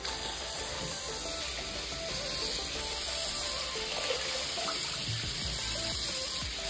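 A stream of running water pours in a steady flow onto a pug's back and splashes into a plastic tub of water, with background music underneath.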